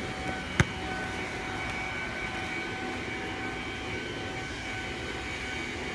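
Steady outdoor background noise with a faint, steady hum, and one sharp click about half a second in.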